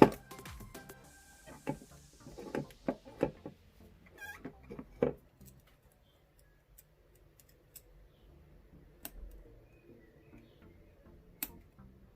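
Lock pick and tension wrench working a padlock: scattered small metallic clicks and taps, a loud one at the start and a cluster over the first five seconds, then a few sparse clicks.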